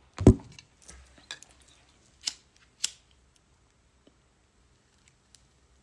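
A single low thump, then a few scattered sharp clicks and taps over the next few seconds.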